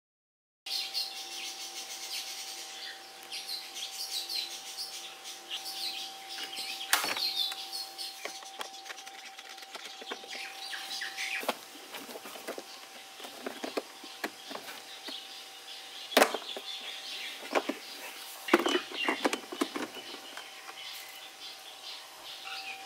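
Several sharp plastic clicks and knocks as the battery cover inside the Suzuki Burgman 400's glove compartment is handled and taken off, the loudest about two-thirds of the way in. Small birds chirp in the background throughout, over a faint steady hum.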